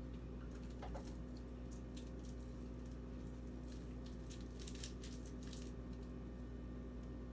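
Faint crackling and squishing of sticky, syrup-coated popcorn being pressed into balls by hand, in a scatter of small clicks over a steady low hum.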